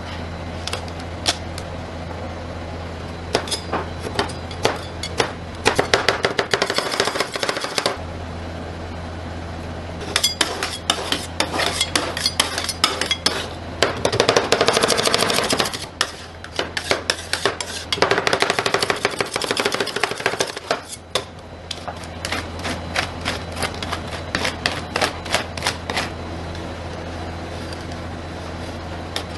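Two metal spatulas chopping and scraping on the frozen steel plate of a rolled ice cream maker, breaking a candy bar into the cream: rapid runs of sharp clacking strokes lasting a few seconds each, turning to sparser taps and scrapes near the end as the frozen sheet is pushed into rolls. A steady low hum runs underneath.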